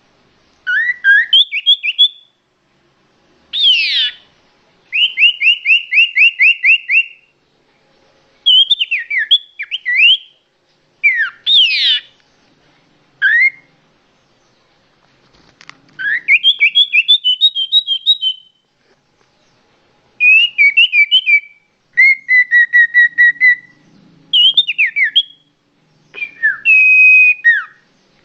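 Songbird singing loud, varied phrases of quick whistled notes and trills, about a dozen bursts of song with short pauses between.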